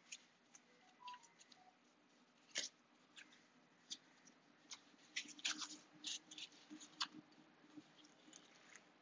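Faint, scattered rustles and small clicks of gloved hands handling fishing line: a work glove being pulled on, then braided line wrapped around the glove and drawn tight against the leader. The handling sounds come more thickly about halfway through.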